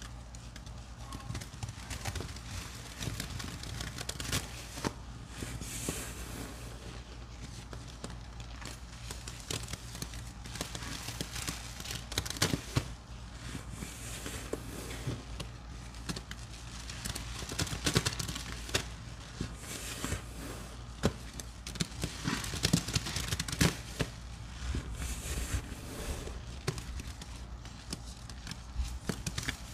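Sponges loaded with a thick, foamy paste of Murphy's Oil Soap, Pine-Sol, soaked soap and baking soda being squeezed and squished, giving irregular wet crackling and popping of the suds, with a steady low hum underneath.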